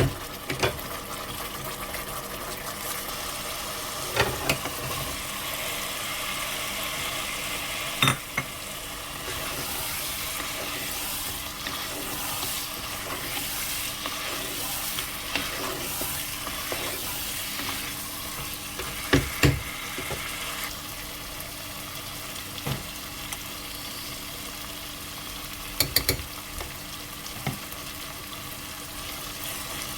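Aloo gosht sizzling and frying in a pot as it is stirred, a steady hiss broken by a few sharp knocks, including a quick double knock about two-thirds of the way through.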